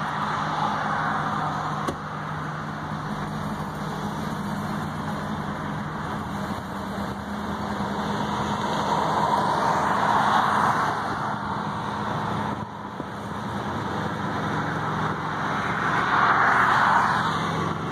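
Pickup truck engine running with tyre and road noise, heard from inside the cab. A steady low hum sits under a rushing noise that swells about ten seconds in and again near the end.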